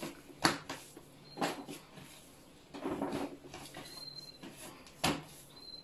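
Soft bread dough being kneaded by hand on a tabletop: about four dull thumps and slaps as it is lifted, folded over and pressed down.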